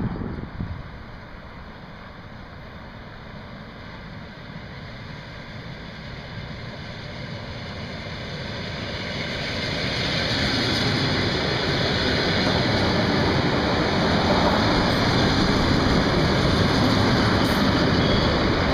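ET2M electric multiple unit approaching and running past along the platform. Its running noise grows louder over about ten seconds, then holds steady as the cars pass.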